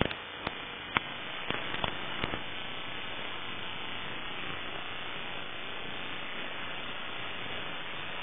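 Steady hiss of static, with a few sharp clicks in the first couple of seconds.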